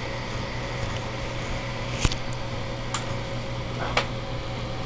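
Steady whirring hum of a Dell server power supply's cooling fan running under load, with one sharp click about two seconds in and fainter ticks after.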